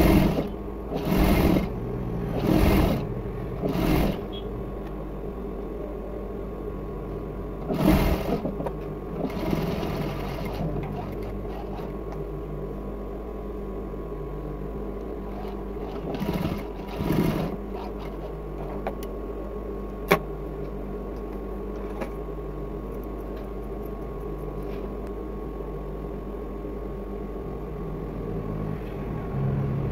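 Industrial sewing machine stitching in short runs of about half a second each, several in the first half, with the motor humming steadily between and after them. A single sharp click comes about twenty seconds in.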